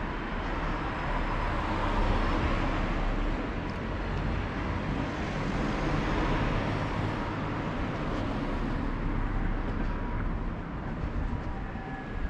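Street traffic noise: a steady rumble of passing vehicles that swells louder about two seconds in and again around six seconds.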